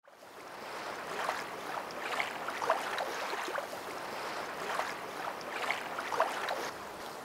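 Water noise like small waves lapping, swelling and ebbing about every second, with no music.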